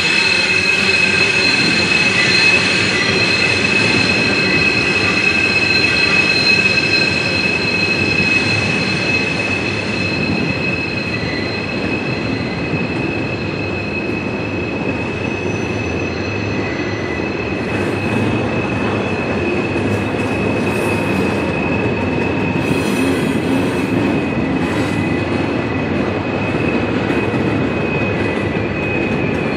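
Loaded freight cars of a long train rolling around a sharp curve: steady high-pitched wheel flange squeal over the low rumble of the cars. The squeal is strongest at first and eases after about ten seconds.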